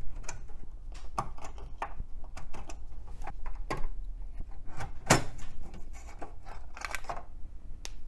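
Scattered plastic clicks and knocks as ribbon-cable connectors are pulled off an ISA I/O card and the card is worked loose from its slot. The loudest knock comes about five seconds in.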